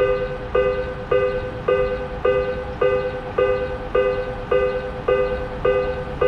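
Japanese railroad crossing's electronic warning bell ringing, a steady two-note ding repeated a little under twice a second.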